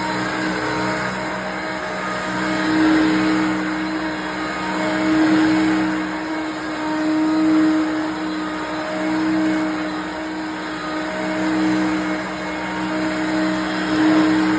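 1988 Hoover Concept One upright vacuum cleaner running with a steady motor hum that swells and eases about every two seconds.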